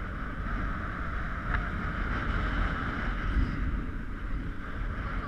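Wind buffeting the microphone on a moving motorbike, over the steady hum of its engine.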